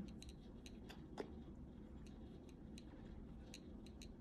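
Faint, irregular ticks and light scratches of a coloured pencil working on paper, with one slightly louder tick about a second in.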